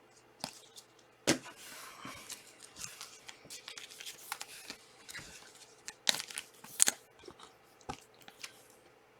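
Trading card packs and cards being handled at close range: wrapper rustling and crinkling with a run of sharp clicks and taps as cards slide and knock against each other, the loudest clicks about a second in and again near six, seven and eight seconds.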